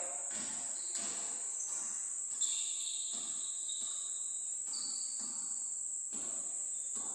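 Steady high-pitched chirring of crickets runs throughout. Scattered thuds of a basketball bouncing on the court come through under it.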